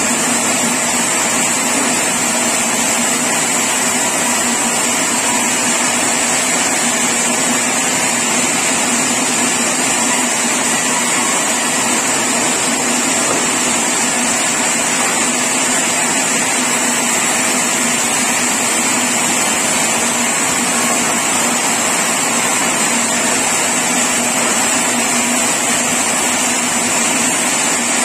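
Sawmill machinery running with a loud, steady, unchanging drone and a high whine.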